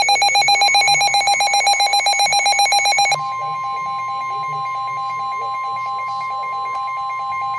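NOAA Weather Radio alert sequence: a rapid pulsing electronic beep for about three seconds, then the steady single-pitch warning alarm tone, which heralds a new warning.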